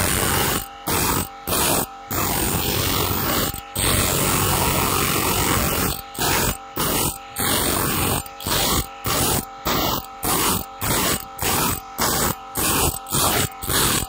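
Abrasive grinding wheel sharpening the steel teeth of a wide sawmill bandsaw blade, grinding in short repeated strokes about two a second, with a steady motor whine in the gaps between. There is a longer stretch of unbroken grinding about two to six seconds in.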